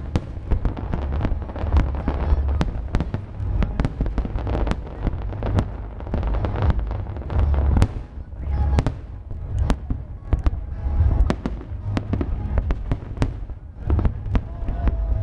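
Aerial fireworks display: a dense, continuous barrage of shell bursts and crackling, many sharp bangs a second.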